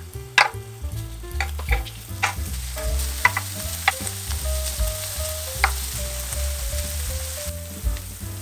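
Shredded mozzarella sizzling as it melts in a nonstick four-cup egg pan over low heat, with several sharp taps of a wooden spoon against the pan in the first six seconds as the cheese is spooned in.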